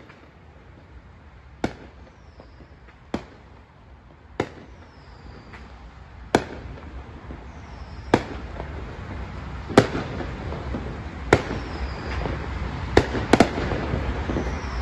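Aerial fireworks bursting: about ten sharp bangs, roughly one every second and a half, with two coming close together near the end. A low traffic hum from passing cars runs underneath and grows louder in the second half.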